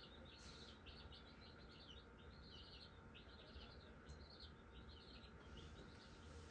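Near silence with faint, quick high bird chirps, about two a second, over a faint steady hum.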